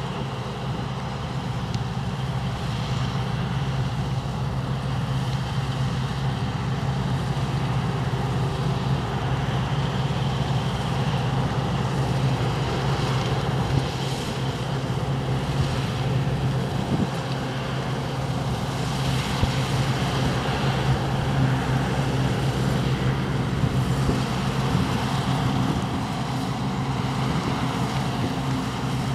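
Large diesel farm machinery running steadily under load: a constant low engine hum with an even mechanical rush over it.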